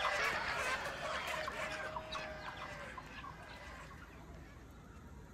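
Recorded chickens clucking and squawking, many overlapping cries played from a truck's loudspeaker, dying away over the second half.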